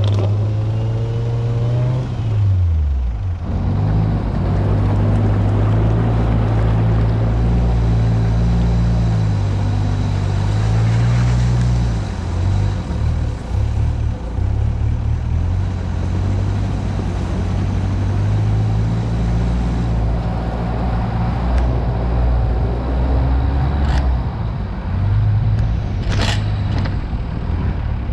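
Mitsubishi Pajero's engine pulling through mud and along a forest track. Its revs drop steeply about three seconds in, then run fairly steady, shifting up and down. A few sharp knocks near the end.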